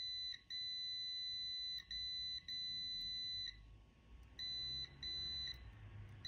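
Multimeter continuity beeper sounding a steady high beep in stretches of about half a second to a second and a half, cutting out and back in several times with a longer break past the middle. Each beep means the switch contacts are closing, joining the centre pin to an end: the serviced switch is working.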